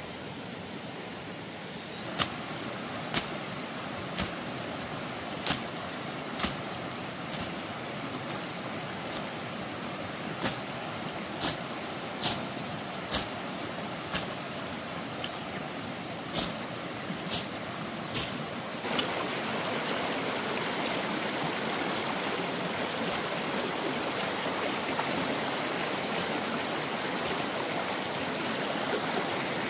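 Steady rush of flowing water. For the first half it is broken by about a dozen sharp knocks, roughly one a second. The water noise becomes louder at about nineteen seconds.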